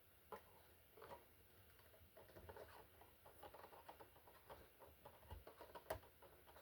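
Faint, irregular little clicks and taps of a cockatiel's beak as it drinks juice, with one sharper click near the end.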